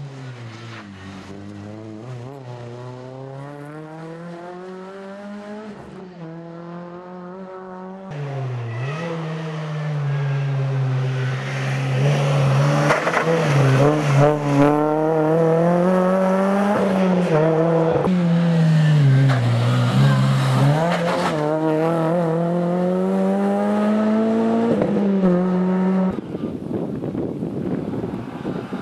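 Renault Clio rally car's four-cylinder engine driven hard, its pitch climbing and dropping again and again with each gear change and lift. It is fainter at first, gets louder about 8 s in, and is loudest through the middle, then changes abruptly near the end as one pass cuts to another.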